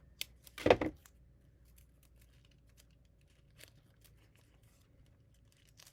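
Adhesive tape being pulled and torn off the roll to tape down a filament spool's end: a short rip less than a second in, then a few faint handling ticks.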